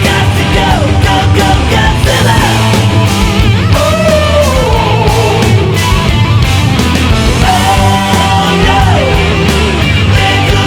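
Loud rock music with distorted guitar over a steady beat, with bending lead guitar or vocal lines.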